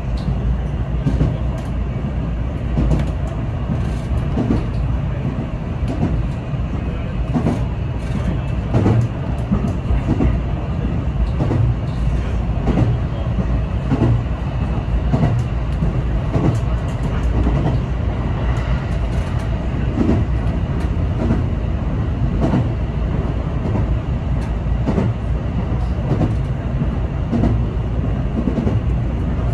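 A JR West 323 series electric commuter train running, heard from inside its leading car: a steady low rumble of wheels on rails, with frequent short knocks from the track.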